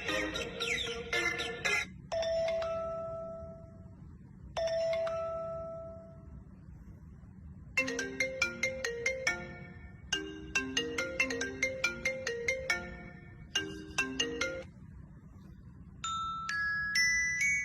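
A series of different alarm tones played one after another: a short busy melody, then a single chime that rings out and fades, twice, then quick runs of short notes in several bursts, and near the end a different tune of steady electronic tones.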